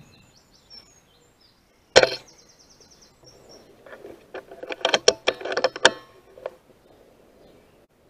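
A single sharp rifle shot about two seconds in, followed about two seconds later by a flurry of wingbeats and harsh calls as the crows scatter from the wire. Faint small-bird chirps are heard near the start.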